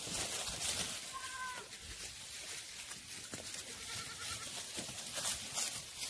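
A black goat bleats once, short and clear, about a second in, and a fainter wavering bleat follows about four seconds in, over the crackle of hooves and feet moving through dry leaf litter.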